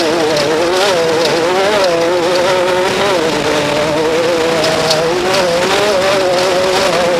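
Off-road race vehicle's engine running under load. Its pitch wavers up and down, then holds steadier from about three seconds in, with scattered sharp ticks and rattles over it.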